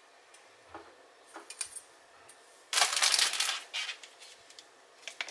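A plastic tube being handled and cut to length. There are a few light clicks and taps, then about a second of loud crackling plastic noise a little past halfway, with a shorter burst just after.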